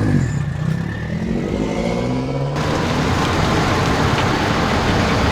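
Car engine running, with a sudden change about two and a half seconds in to a louder, rough rushing noise.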